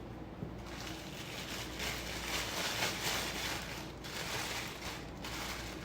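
Soft, uneven rustling and scraping as tart dough is worked with a rolling pin, swelling near the middle, over a low steady room hum.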